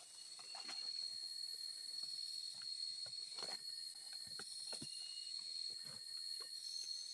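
Insects, crickets by their sound, chirring in one steady high-pitched trill, with scattered faint clicks.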